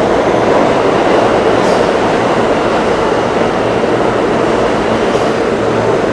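New York City subway train running alongside an underground station platform: a loud, steady rumble of steel wheels on the rails.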